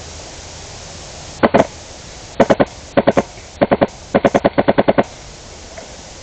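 Airsoft M249 converted to high-pressure air with a PolarStar Inferno Gen 2 engine, firing five short bursts at about ten shots a second. The last and longest burst, about eight shots, comes near the end.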